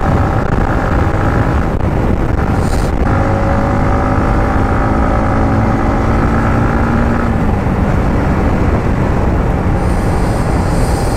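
Yamaha MT-15's single-cylinder engine running as the bike is ridden, under heavy wind noise on the rider's microphone. The engine note wavers and drops a little just after the middle.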